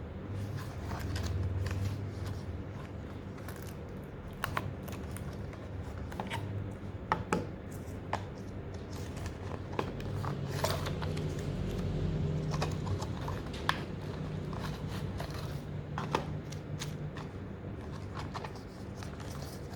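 Handling noise of a small cardboard retail box being opened and unpacked by hand: scattered clicks, scrapes and paper rustling over a low rumble of hands on the table and packaging.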